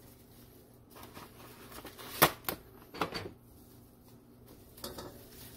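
Plastic wrap rustling and crinkling as hands fold it around a ball of pie dough on a wooden board, with a sharp knock a little over two seconds in and a few smaller clicks after.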